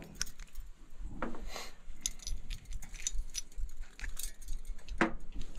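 Light metallic jingling and clinking as a brass Goodman TXV is handled, its coiled capillary tube and sensing bulb rattling against the valve body. It comes as scattered short clicks, with one sharper click about five seconds in.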